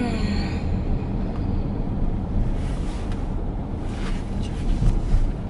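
Steady low road rumble inside the cabin of a moving car: engine and tyre noise.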